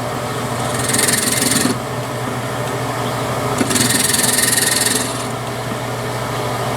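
Benchtop drill press running with a steady motor hum while its bit is fed down into the block twice, each cut a harsh grinding hiss lasting about a second, about a second in and again near four seconds in. The bit is boring a hole partway into the block, not all the way through.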